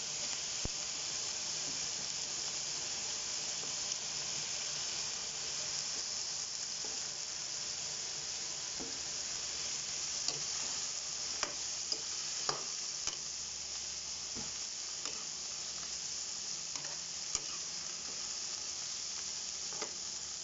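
Squash, pork and eggplant sizzling in a wok, a steady frying hiss, with a metal ladle clicking and scraping against the pan now and then as the vegetables are stirred, the clicks mostly in the second half.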